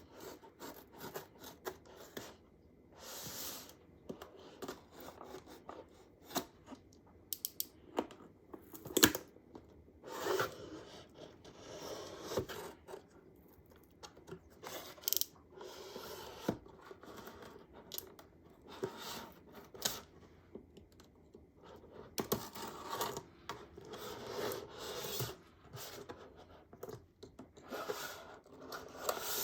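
Phone packaging being handled and opened by hand: irregular rustling, scraping and tearing of paper and cardboard, with small sharp taps and clicks scattered through it. The sharpest tap comes about nine seconds in.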